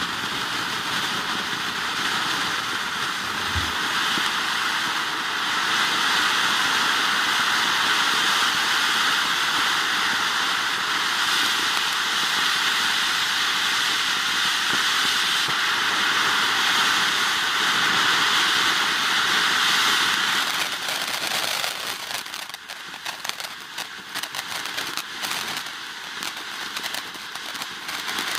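Ground fireworks fountain spraying sparks with a loud, steady hiss. About twenty seconds in, the hiss gives way to dense, irregular crackling.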